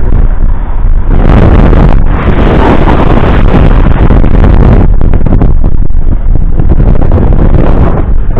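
Loud wind buffeting a moving camera's microphone: a dense, steady rumble that nearly overloads the recording.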